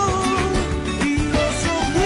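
Music with a steady beat and a sustained, wavering melody line.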